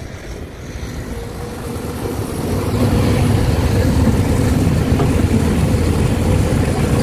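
Heavy diesel engine of earthmoving equipment running with a low rumble and a steady hum, growing louder about two and a half seconds in and staying loud.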